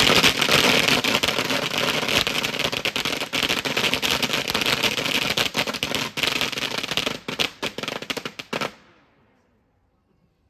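A string of firecrackers going off in a rapid, dense crackle of bangs that stops suddenly about nine seconds in, set off to welcome the statue of the sea goddess Mazu.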